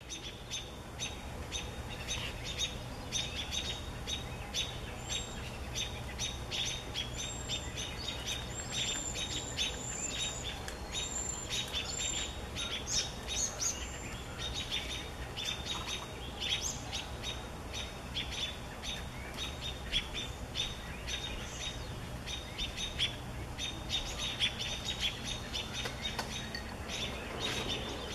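American robins giving rapid, repeated alarm calls, the sound of robins mobbing a great horned owl near their nestlings. Thin, high whistled notes come in among the calls for a stretch in the first half, over a steady low rumble.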